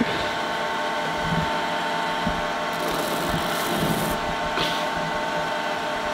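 Polishing machine's motor running steadily while a rusty steel bar is pressed hard against the spinning felt wheel loaded with polishing paste, grinding and rubbing against it with a few dull knocks. This is the felt being dressed with the bar's edge to break in its abrasive coating before polishing.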